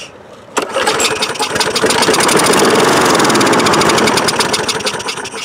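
A Briggs & Stratton single-cylinder lawn mower engine catches about half a second in, runs for about four seconds, then fades out near the end. It is running on starting fluid sprayed into the carburetor throat, which shows the engine has spark and compression but is getting no fuel through the carburetor, blamed on a main jet clogged with old fuel.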